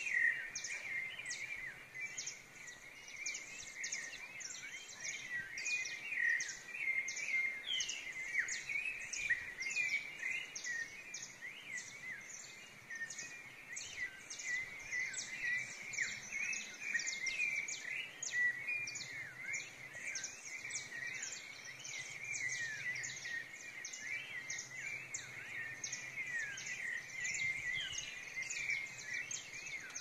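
Pre-dawn chorus of wild birds, which the uploader identifies as sabiás (thrushes) and saffron finches: many overlapping chirps and short whistled glides, with a steady run of short high notes repeating about twice a second.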